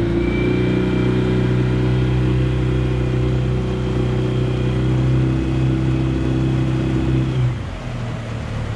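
Outboard motor pushing a jon boat at a steady cruising speed. Near the end its pitch falls and it gets quieter as the throttle is eased back.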